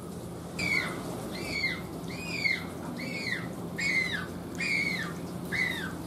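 A newly fledged Humboldt penguin chick calling: about seven short, high, arching cries, one roughly every 0.8 s. Its voice is still thin and childlike, not yet the deep voice of an adult Humboldt penguin.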